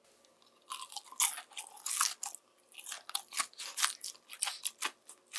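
Biting into and chewing a piece of freshly deep-fried chicken: a run of irregular crisp crunches starting about a second in, the sound of a well-fried, crispy coating.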